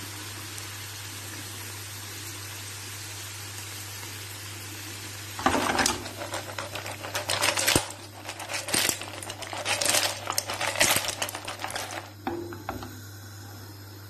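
Mussel and clam shells clattering and rattling against a frying pan as the seafood is stirred or tossed, a dense run of clicks starting about five seconds in and stopping shortly before the end. Before that, a steady hiss from the hot pan.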